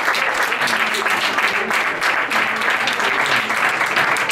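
Audience applauding after a song, a steady patter of many hands clapping.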